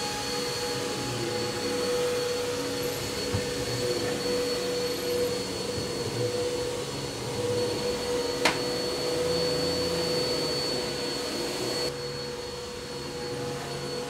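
Upright bagless vacuum cleaner running steadily with a constant whine, sucking through its hose wand. A single sharp click comes about two-thirds of the way in, and the high hiss drops away near the end.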